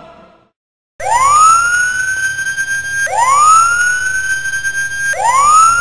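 Alarm siren warning of a radiation leak. It starts about a second in as a rising whine that climbs and then holds, and it starts over about every two seconds, three times.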